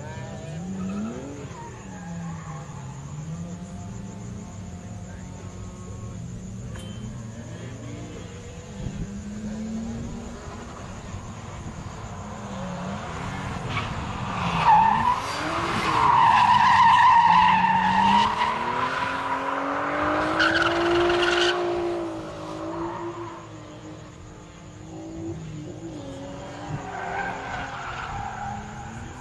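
Drift car's engine revving up and down as it slides through the corners, with tyre squeal. The car and the tyre squeal grow loud as it drifts close by about halfway through, then fade as it pulls away.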